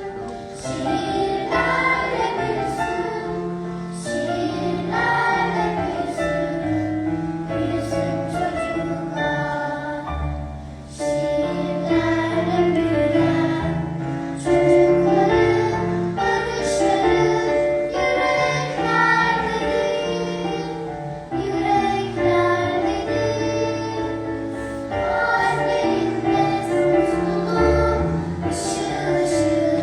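Children's choir singing a song over instrumental accompaniment with a moving bass line.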